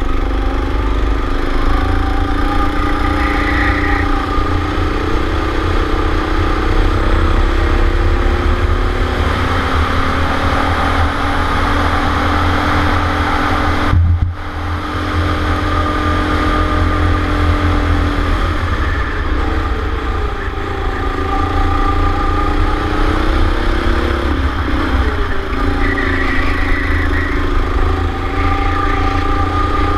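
Racing kart engine heard from an onboard camera on the kart, revving up along the straights and dropping off into the corners, over a heavy rumble of wind and vibration. The sound dips briefly about halfway through.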